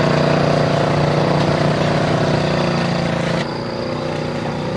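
Small motorcycle engine running steadily under load, pulling a sidecar food cart through deep mud. About three and a half seconds in the sound suddenly turns quieter and duller.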